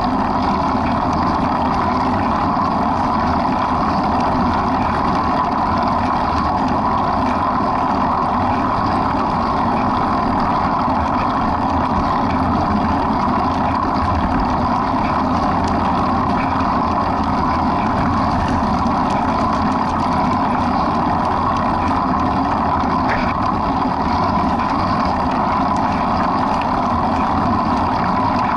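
A steady, unchanging drone of a running motor vehicle, the same pitch and loudness throughout.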